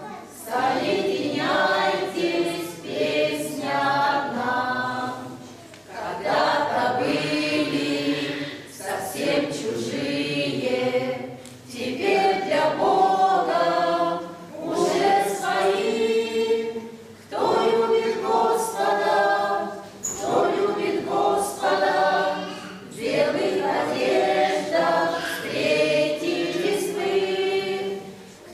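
Small mixed choir of older men and women singing a hymn unaccompanied, in phrases of about five or six seconds with brief breaths between them.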